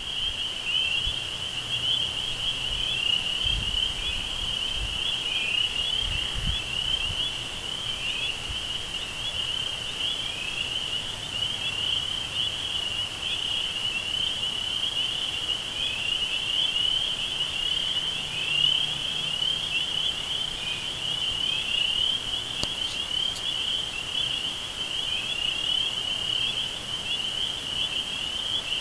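Dense insect chorus: many overlapping high chirps blending into one continuous shrill trill, with a faint low rumble underneath.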